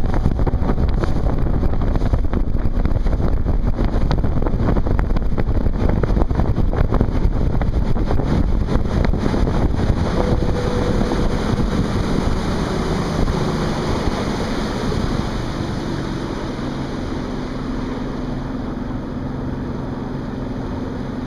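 Motorboat under way, with wind buffeting the microphone and water rushing past the hull. From about halfway through, the engine's pitch falls and the rush dies down, leaving a steadier, quieter engine hum as the boat slows.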